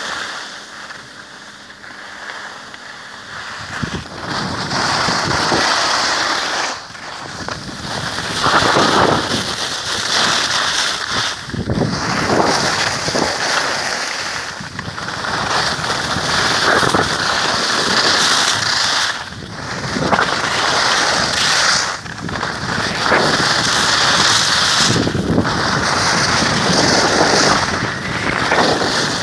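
Skis scraping over packed snow on a downhill run, with wind rushing across the microphone; a loud, steady rush that rises and falls in waves, quieter for the first few seconds.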